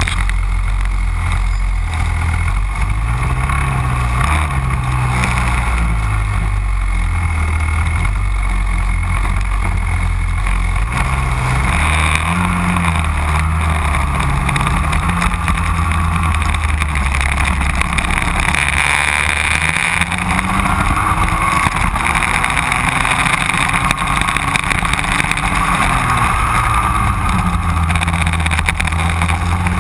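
Racing kart engines running at high revs, pitch repeatedly rising and falling as the karts accelerate and brake through the corners, with wind on the microphone.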